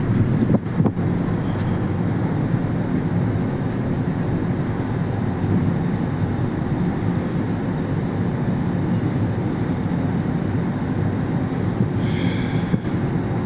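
Steady low rumble and hum of a ferry's engines during slow berthing. There are a couple of clicks about a second in and a brief high-pitched call near the end.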